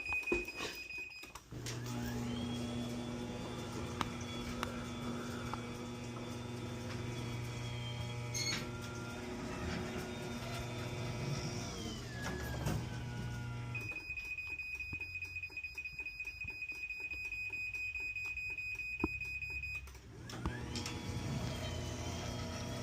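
Chamberlain belt-drive garage door opener running its programming travel cycle. The motor hums steadily for about twelve seconds, then stops for about six seconds while a steady high beep and rapid ticking sound, then starts running again near the end.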